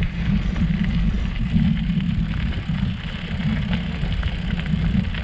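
Mountain bike rolling along a gravel track, heard close up from a handlebar-mounted camera: a steady low rumble of the tyres on gravel, with small rattles and ticks from the bike.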